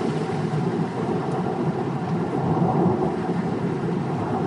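Steady low road and engine noise from a moving car, heard from inside the cabin.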